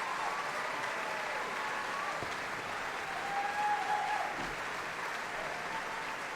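Audience applauding steadily in a large hall, with a few brief voices calling out over the clapping.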